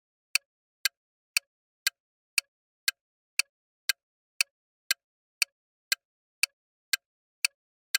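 Countdown timer sound effect: short, sharp clock-like ticks, evenly spaced about two a second, with silence between them.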